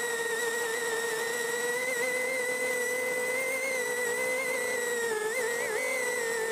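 Micro FPV quadcopter's motors and propellers, recorded by the camera on board: a steady whine that dips and wobbles in pitch about five seconds in as the throttle changes.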